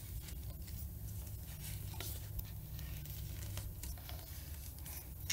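Faint, scattered clicks and creaks from a 3D-printed headset press as its threaded rod is screwed down by hand, pressing 1-inch headset cups into a bicycle head tube, over a steady low hum.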